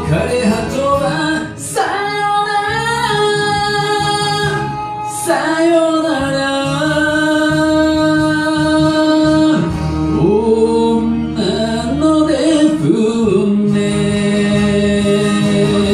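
A man singing an enka ballad over a karaoke backing track lowered six semitones, holding long notes that waver in pitch.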